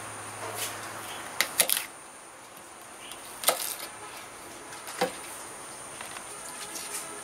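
Kitchen knife knocking on a wooden cutting board as cabbage is cut: a quick cluster of sharp knocks about one and a half seconds in, then single knocks at about three and a half and five seconds. A steady high insect chirr runs underneath.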